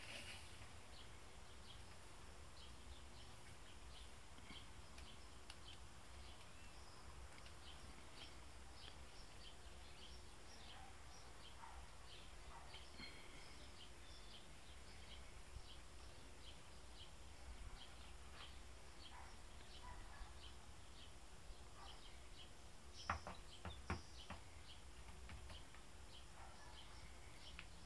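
Faint background ambience with many short, high chirps of distant birds scattered throughout, over a low steady hum. A few sharp clicks stand out about 23 and 24 seconds in.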